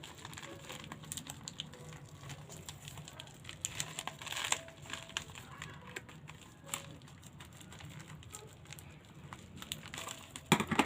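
Toy packaging being handled: crinkling and rustling with scattered small clicks, a louder rustle about four seconds in.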